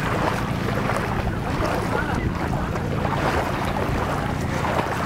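Steady low drone of a boat engine running, mixed with wind noise on the microphone and scattered voices of people around.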